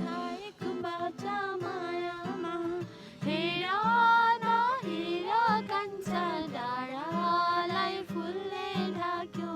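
A Nepali love song: a voice sings a wavering melody over plucked acoustic guitar.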